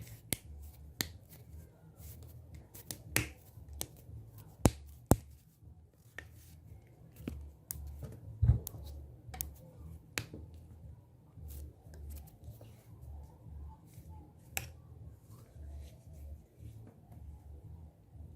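ASMR hand sounds close to the microphone: irregular sharp finger snaps and clicks, a few much louder than the rest, over a low pulsing rumble.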